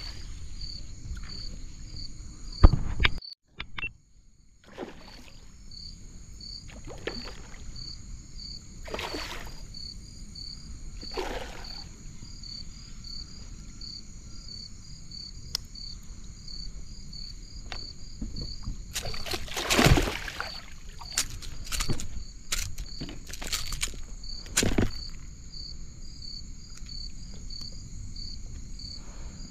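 Outdoor ambience: an insect chirping in a regular rhythm, a little more than once a second, over a steady high hum and a low rumble. A sharp knock comes about three seconds in, and a few louder rushing noises follow, the loudest about twenty seconds in.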